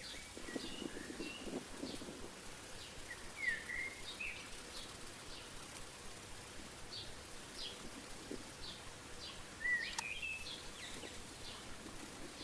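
Small birds chirping in short high calls scattered throughout, with a few louder gliding calls, over steady outdoor background noise; a single sharp click about ten seconds in.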